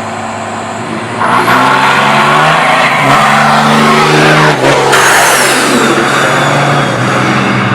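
Car engine accelerating hard and loud: the engine note climbs, breaks briefly for a gear change about four and a half seconds in, then pulls again and eases off near the end.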